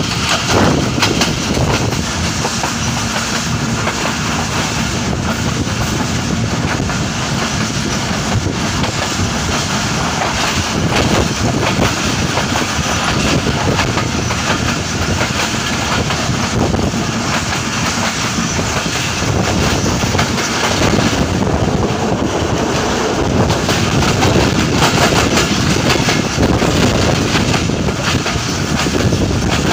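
Passenger train running at speed, heard through an open coach window: a loud, steady rumble of wheels on the rails with occasional clacks.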